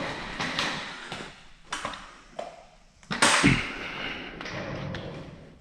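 Handling noises: a few light taps and knocks, then a louder thump with a rustling hiss about three seconds in.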